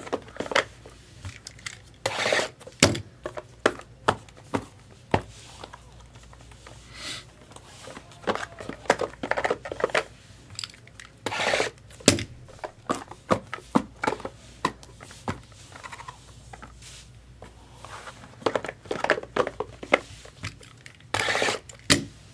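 Card-box packaging being handled on a table: wrapping crinkling and tearing in a few short stretches, with scattered light knocks and clacks as boxes are moved and set down.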